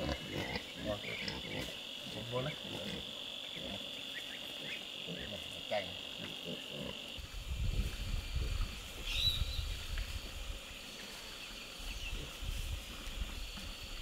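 Steady, high-pitched drone of insects shrilling. The drone shifts about halfway, and a low rumbling noise runs under it from then on.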